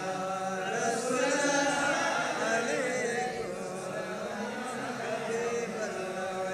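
Men's voices chanting a devotional Urdu naat in a slow, wavering melody over a public-address system.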